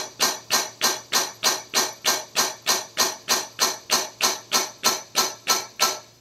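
Hydraulic pump driving a Kurt double-station hydraulic vise, stroking in rapid even pulses, about three and a half a second. The pulses stop suddenly near the end as the vise reaches full clamping pressure.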